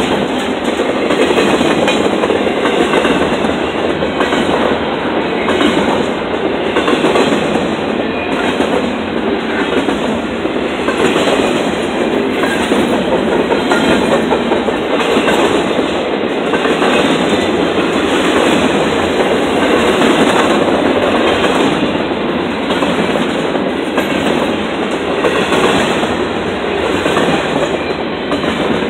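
Empty intermodal double-stack well cars of a freight train rolling past: a loud, steady rumble and clickety-clack of steel wheels on rail.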